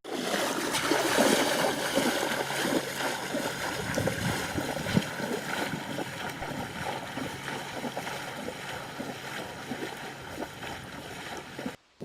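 Water sloshing and splashing, with many small irregular crackles.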